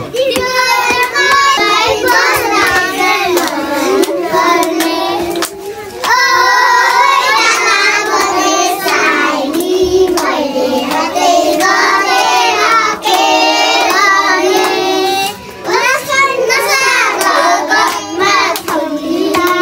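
Children singing a song in high young voices, with hand clapping.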